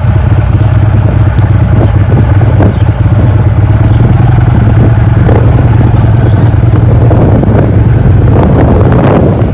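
Motor vehicle running, a loud steady low drone with light rattles above it.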